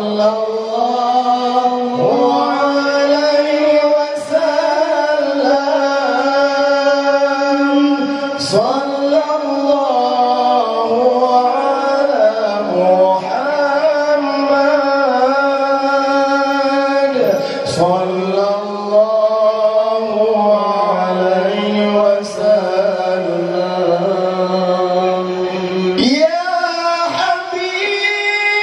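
Men's voices singing a sholawat in duet, amplified through handheld microphones, in long high held notes with melismatic ornaments and vibrato. The singing breaks off briefly every few seconds.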